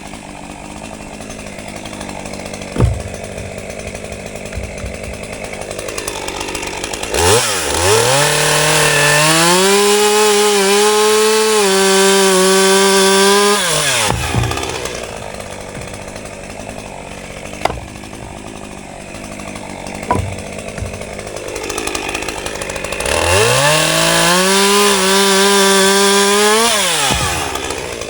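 Two-stroke chainsaw idling, then opened up to full throttle twice: once for about seven seconds and once for about four, dropping back to idle in between. This is typical of bucking a log into firewood rounds. A few sharp knocks sound during the idle stretches.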